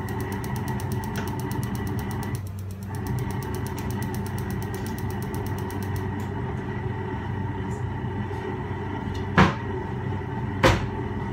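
A steady mechanical hum from a kitchen appliance, with faint rapid high ticking over the first six seconds. About nine and a half seconds in, and again a second later, a metal pot lid clanks.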